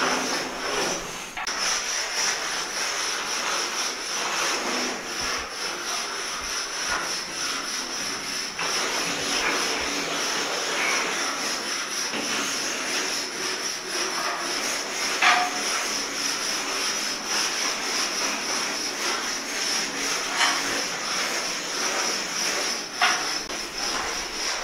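Steady rubbing sound across a surface, with a few sharp clicks about fifteen, twenty and twenty-three seconds in.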